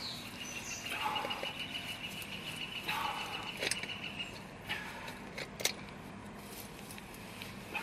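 A long-handled wrench and socket turning a helical earth anchor by hand into the soil: several sharp metal clicks and scrapes as each stroke is pulled round, the loudest click about two thirds of the way in.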